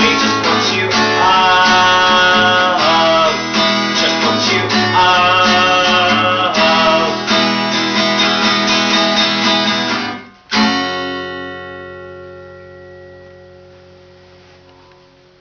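Acoustic guitar strummed steadily. About ten and a half seconds in, a final chord is struck and left to ring, fading slowly away.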